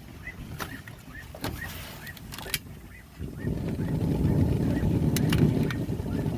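A few clicks and handling knocks, then about three seconds in the gas grill's new tube burner lights and burns with a steady low rush of flame.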